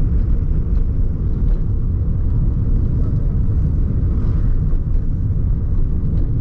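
Steady low rumble of a car driving along a wet street, heard from inside the moving vehicle, with a slight swell about four seconds in as a pickup truck passes alongside.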